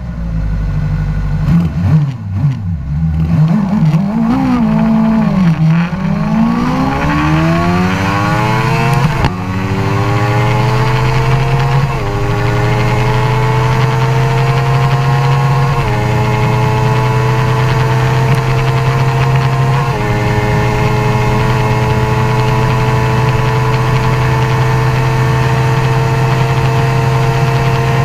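Suzuki GSX-R 750's inline-four engine accelerating hard at full throttle through the gears. Its pitch climbs, then drops briefly at each upshift, the last about twenty seconds in. After that it holds high revs, rising only slowly as the bike nears its top speed, with steady wind rush.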